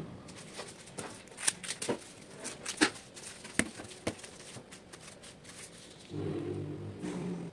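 Scattered sharp clicks and light rustling from handling the leaf-wrapped rice packets, then a low, held, pitched call lasting about a second and a half near the end.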